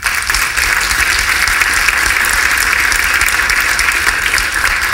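Audience applauding, a dense patter of many hands clapping that starts suddenly and holds steady.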